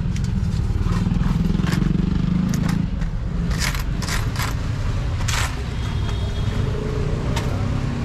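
Steel utensils clinking and scraping in a string of short, sharp knocks over a steady low rumble.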